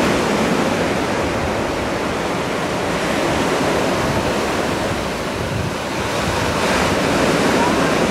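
Steady rush of waves and surf washing against a rock jetty, with wind buffeting the microphone.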